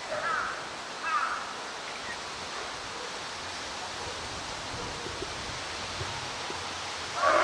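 Steady rushing outdoor background noise, with two short calls about a second apart near the start.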